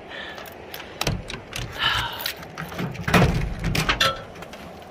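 Clicks, rattles and knocks of a pickup truck's camper shell rear hatch being unlatched and lifted open, the loudest knocks about a second in and about three seconds in.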